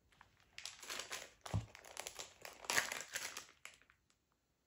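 Clear plastic zip-top bag crinkling and rustling in irregular bursts as it is handled and opened, with a soft low thump about one and a half seconds in.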